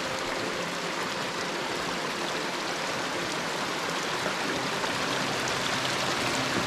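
Small mountain stream rushing steadily over rocks and boulders.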